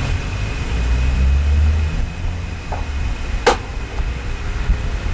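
Electric desk fan running, its airflow buffeting a microphone that has no windshield or high-pass filter, in a steady low rumble with a faint steady high whine. A single sharp click about three and a half seconds in.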